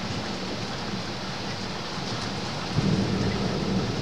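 Thunder from a night electrical storm: a low rumble swells up louder nearly three seconds in, over a steady hiss of rain.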